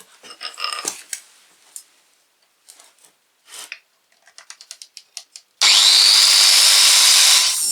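A few light clicks and taps of handling, then about two-thirds in an angle grinder starts with a whine that rises as it spins up and runs loud for about two seconds, grinding the threads off a steel threaded rod.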